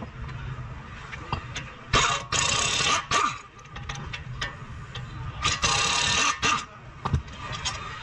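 Two hissing bursts about a second long each, among scattered sharp clicks and ticks, over a low steady hum.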